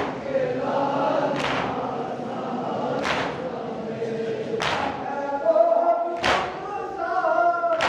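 A group of men chanting a Shia nauha (mourning lament) in unison, with a sharp collective chest-beating (matam) strike about every one and a half seconds.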